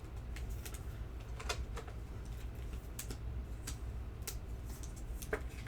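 Trading cards and plastic card holders being handled: faint, scattered light clicks and taps, irregularly spaced about half a second to a second apart.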